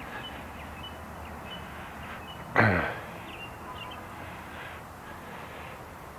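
Outdoor background with faint, short bird chirps, and one short, loud sound about two and a half seconds in.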